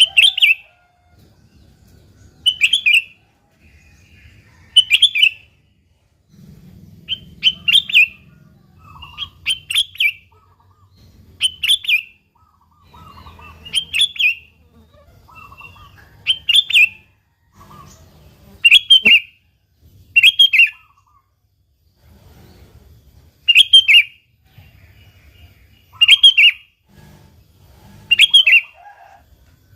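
Sooty-headed bulbul (kutilang) calling: short chirped phrases of a few quick notes, repeated about every two seconds.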